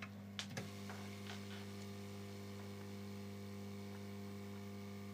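Steady low electrical hum, with a few faint light clicks in the first second and a half.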